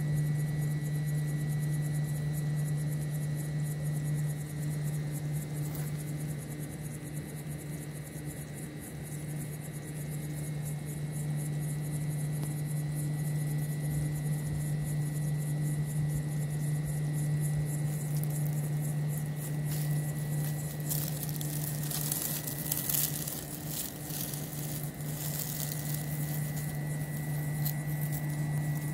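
A steady low hum with a fainter high whine above it. From about 20 s in, dry crackling and rustling comes in over the hum for several seconds.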